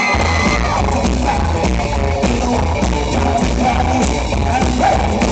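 Live rockabilly band playing loud: upright double bass and drums kick in together right at the start, under a hollow-body electric guitar, with a steady driving beat.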